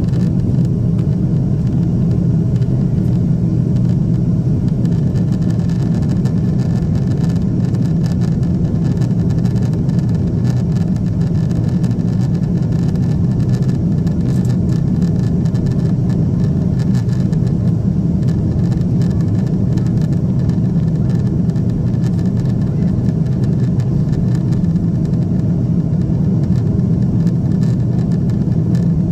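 Steady cabin noise of a Boeing 777-200 in flight, heard from a window seat: a constant low rumble of the engines and rushing air.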